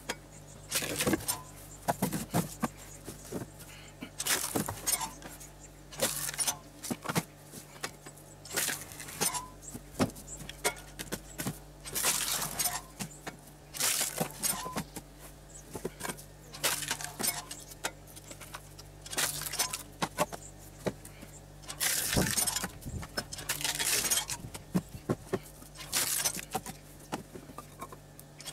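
Pressure-washer-driven water-hydraulic wood splitter splitting short logs: repeated sharp cracks and clatter of split wood, every second or two, over the steady low hum of the pressure washer running.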